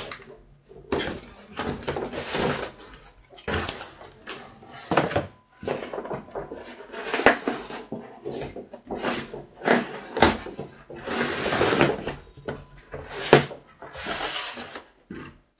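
Cardboard packaging being handled: a printed box sleeve and inner box scrape and rub as they slide apart, with repeated rustling and a few sharp knocks as the boxes are set down.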